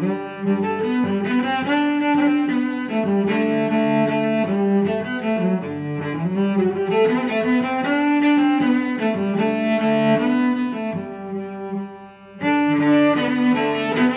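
Background instrumental music, a melody of held notes that changes pitch steadily; it breaks off for a moment near the end and then starts again.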